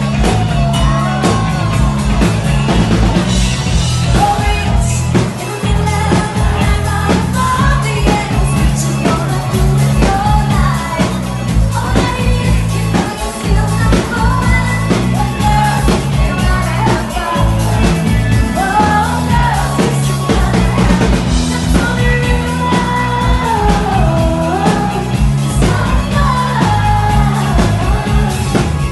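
Live rock band playing, with electric guitar and drums under a woman singing lead into a microphone.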